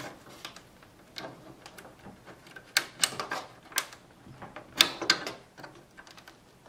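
Plastic wiring-harness connectors being worked loose and pulled off circuit-board headers inside a Sequential Circuits Prophet 5 synthesizer: a scatter of small clicks and rattles, the sharpest about three and five seconds in.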